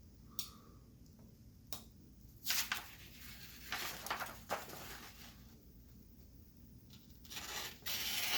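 A folding pocket knife being handled: two sharp clicks in the first two seconds, then several bursts of rustling, scraping noise, the last and loudest near the end.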